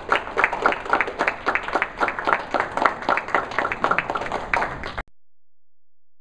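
A small audience applauding: a dense run of handclaps that cuts off abruptly about five seconds in.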